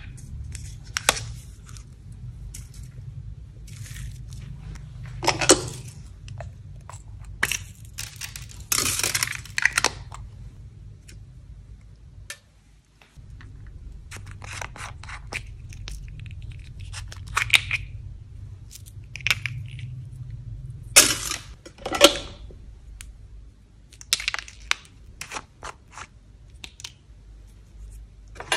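Small plastic toy-shaped containers being handled and snapped open and shut, with sharp plastic clicks and short crinkly rustles scattered throughout, over a low steady hum.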